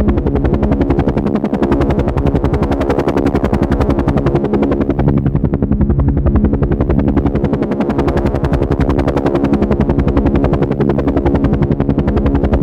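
Helicopter rotor beating in a fast, even rhythm over the steady drone of its engine.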